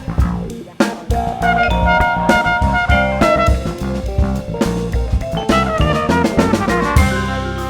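Live jazz band playing, with the drum kit prominent among frequent drum hits over electric bass and short melodic notes.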